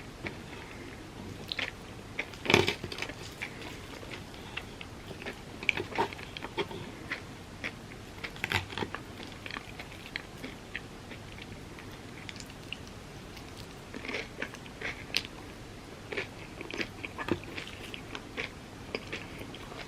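Close-miked eating sounds of Dubai chocolate crepes being bitten and chewed: irregular short clicks and smacks throughout, the loudest bite about two and a half seconds in.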